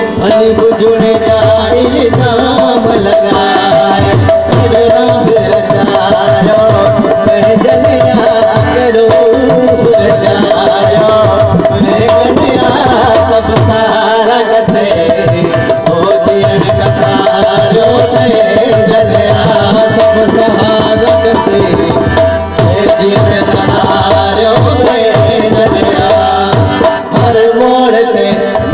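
A man singing a folk song into a microphone, accompanied by a hand drum beating a steady rhythm and a continuous held note underneath.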